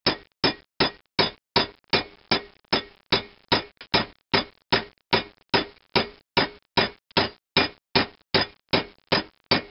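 Steady hammer blows, about two and a half a second, on a steel drift rod driving a steel sizing ball metal-to-metal down through a thin-wall bronze valve-guide liner in a cast-iron IHC engine cylinder head, expanding the liner to a tight fit in the reamed hole.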